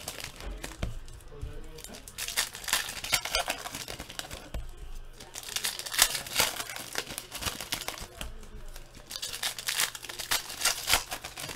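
2015 Panini Prizm football card-pack wrappers crinkling and tearing as packs are ripped open by hand, in irregular crackling bursts.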